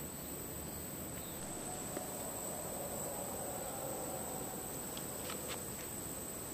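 Steady high-pitched drone of insects over a constant forest hiss, with a few faint ticks about five seconds in.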